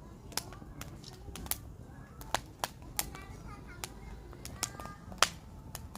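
Firewood burning, with irregular sharp crackles and pops over a low steady rumble of the fire; the loudest pop comes about five seconds in.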